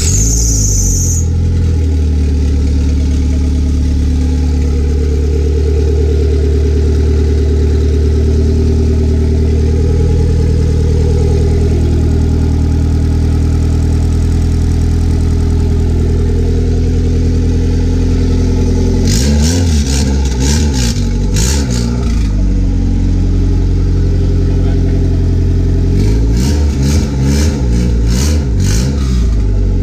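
Built Honda B18 four-cylinder engine with stage 2 cams idling steadily just after a cold start. It is revved twice, a few seconds each time, about two-thirds of the way in and again near the end, before settling back to idle.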